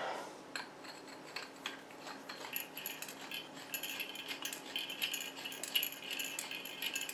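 Metal hookah stem parts clicking and rattling as the threaded downstem is turned into the stem body, settling into a steady metallic scraping from about halfway in.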